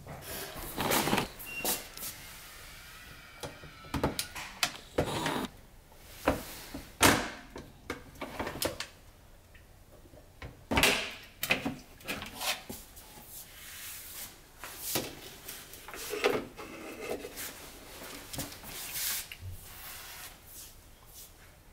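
Pots and small kitchen appliances being knocked and shifted about on pantry shelves by a toddler's hands: irregular clunks, knocks and rattles at uneven intervals, the loudest about seven and eleven seconds in.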